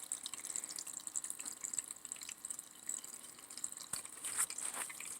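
Small battery-powered tabletop water fountain running: a steady trickle of falling water with scattered small splashes.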